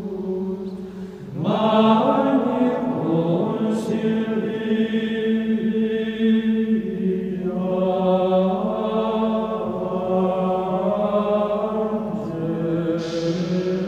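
Slow sung chant, voices holding long notes with gradual changes of pitch. A new phrase enters about a second and a half in.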